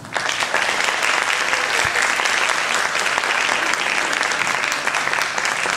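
Theatre audience applauding, dense and steady.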